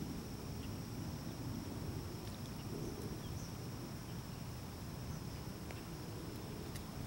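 Faint outdoor ambience: a steady, high-pitched insect drone over a low rumble, with a few faint ticks.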